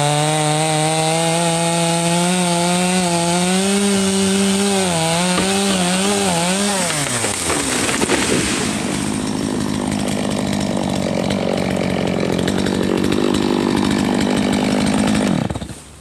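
A gas chainsaw felling a dead, blight-killed American chestnut tree. The saw runs at high revs, its pitch wavering and then dropping about seven seconds in; a rougher, noisier stretch follows as the trunk is cut through and the tree comes down. The saw cuts off near the end.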